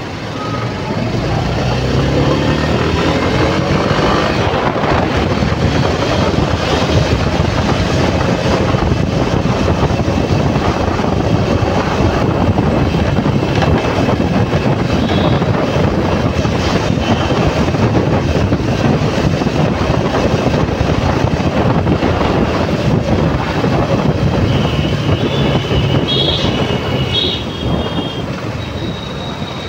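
Motorcycle ride through traffic: the bike's engine picks up speed at the start with rising pitch, then a steady rush of wind buffeting the microphone mixed with engine and traffic noise. A few short high-pitched beeps come near the end.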